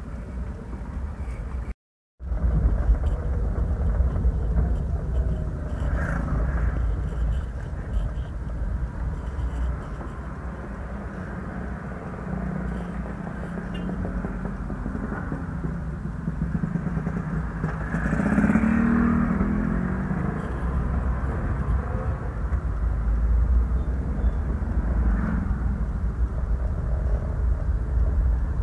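Car engine and road noise heard from inside the cabin while driving: a steady low rumble with a louder stretch a little past the middle. The sound cuts out completely for a moment about two seconds in.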